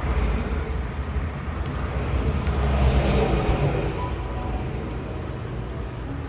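Highway traffic: a steady rush of tyres and engines, with one vehicle passing close and growing louder to a peak about halfway through, then fading.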